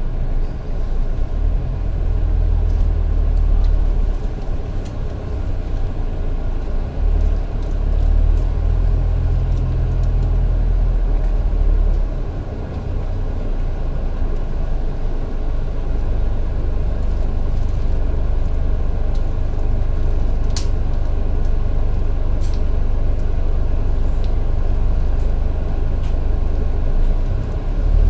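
A bus running on the road, heard from inside: a steady deep rumble of engine and road noise. The deepest drone eases about twelve seconds in, and there is one sharp click near twenty seconds.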